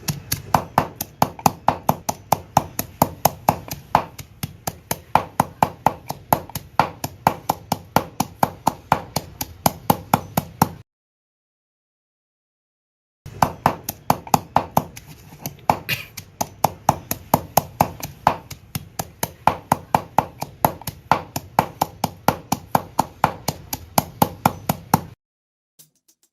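Pestle pounding shrimp and young tamarind in a mortar: steady repeated knocks, about three a second. The pounding breaks off for about two seconds near the middle, then carries on.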